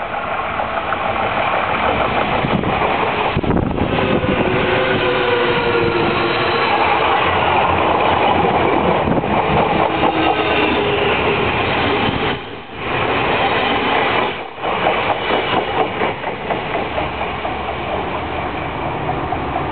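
Odakyu Line electric train passing at close range: a loud, continuous rumble of wheels on rails with whining tones over it, and two brief dips in level about twelve and fourteen seconds in.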